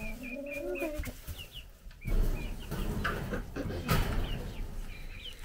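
Chickens in a coop: low clucking from the adult birds and short, high peeps from chicks. About two seconds in comes a loud burst of rustling, scuffling noise lasting a couple of seconds, then more peeping.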